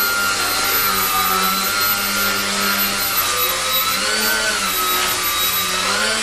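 ST Model Twin Dragon tandem-rotor RC helicopter hovering: a steady motor whine over rotor noise. The pitch rises briefly about four seconds in and again near the end.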